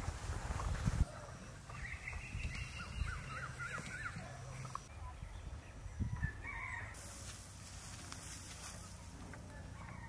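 Chickens calling in the background, with wavering calls for a few seconds after the start and again briefly past the middle. A few heavy footsteps on a dirt path come in the first second.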